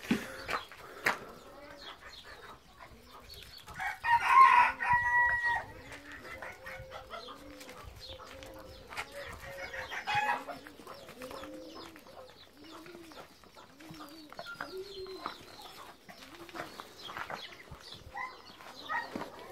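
Animal calls: a loud held call about four seconds in, a shorter one near ten seconds, and a run of short, low calls repeating under them. Light scuffing and clicking runs throughout.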